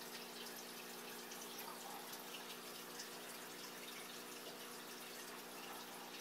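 Steady background hum with a hiss and faint irregular ticks; no distinct event.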